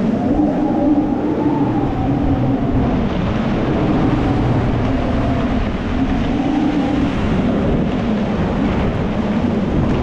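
Typhoon-force wind gusting, with a low howl that rises and falls with each gust over a heavy rumble of wind on the microphone.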